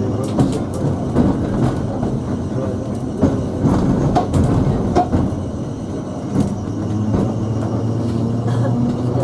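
Sheffield tramcar 510 under way, heard from inside its saloon: the electric traction motors hum steadily while the car body rattles, with frequent sharp clicks and knocks from the wheels and fittings.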